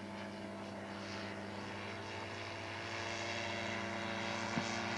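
Engine of a radio-controlled scale model Fokker D.VIII flying past, a steady propeller drone that grows louder in the second half as the plane comes around toward the listener.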